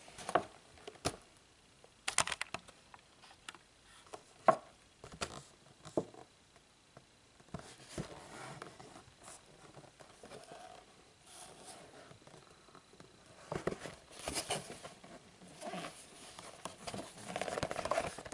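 Cardboard model-airplane box being handled by hand: sharp clicks and knocks in the first few seconds, then bursts of rustling and crinkling as the box is turned over near the end.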